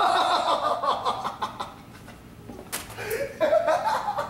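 Boys laughing in two stretches, with one short knock about two and a half seconds in.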